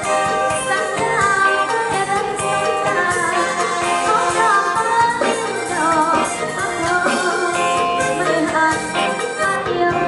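Live band playing a song through the venue's sound system: a woman singing into a microphone over bass guitar and drum kit.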